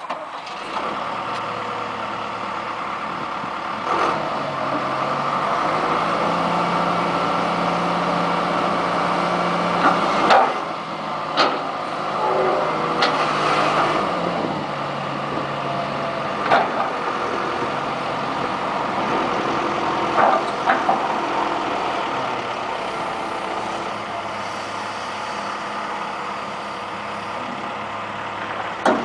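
John Deere 160 excavator's diesel engine running steadily, its note shifting up and down a few times, with several sharp knocks and clanks scattered through.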